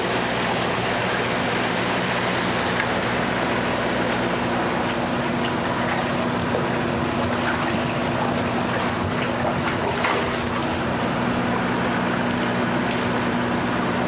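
Water gushing steadily from a fish-stocking truck's tank as trout are released into a lake, over a steady low mechanical hum from the truck.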